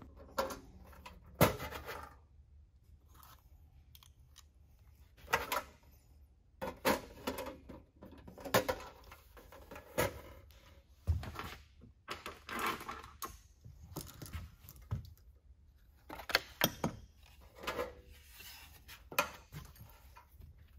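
Cleco pliers setting and releasing Cleco temporary fasteners in the drilled rivet holes of an aluminum rudder skin: an irregular string of sharp metallic clicks and clinks as the sheet-metal part is handled.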